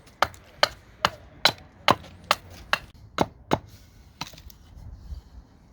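Axe chopping into wood in a quick, even run of about ten sharp knocks, roughly two and a half a second, stopping a little past four seconds in.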